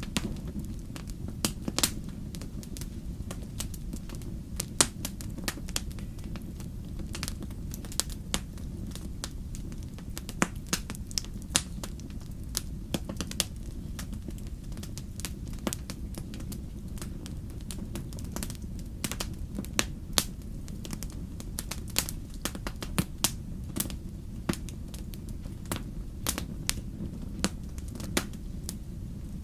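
Campfire crackling: irregular sharp pops and snaps, several a second, over a steady low rumble of the burning fire.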